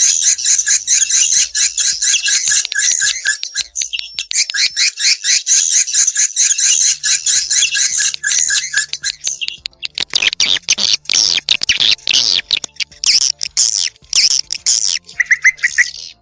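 Swiftlet call recording, the lure sound played from swiftlet-house tweeters to draw swiftlets in to roost and nest. Dense, rapid high chirping trills change about ten seconds in to sharper, more broken chirps, with a short run of lower chirps near the end.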